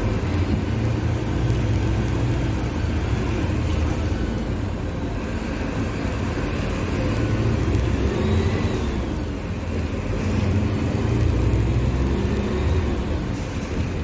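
Mercedes-Benz OF-1721 BlueTec 5 bus's diesel engine running under way, its pitch rising and falling as the bus speeds up and eases off, with an arching rise and fall about eight to nine seconds in.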